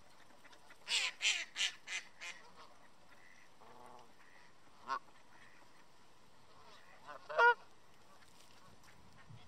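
Canada geese honking: a quick run of about five honks about a second in, getting quieter, a single short honk near the middle, and one louder honk near the end.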